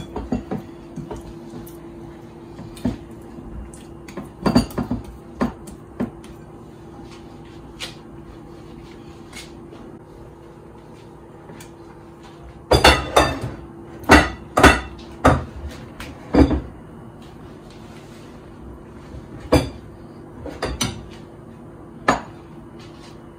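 Scattered knocks and clinks of bowls and utensils being handled on a kitchen counter, coming in clusters with pauses between, over a faint steady hum.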